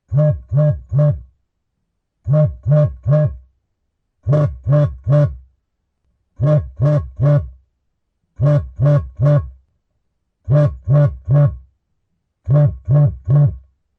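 Samsung phone vibrating: sets of three short buzzes, each set about two seconds after the last, seven sets in all. Each buzz is a low, steady hum.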